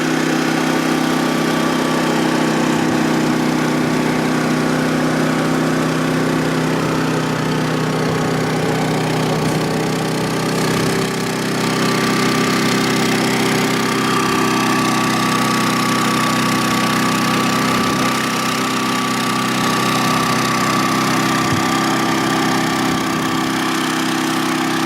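Champion 3400-watt dual-fuel inverter generator running steadily on propane with no load, settling after a fresh start. There is a slight dip in its sound about halfway through, and a faint higher whine joins it after that.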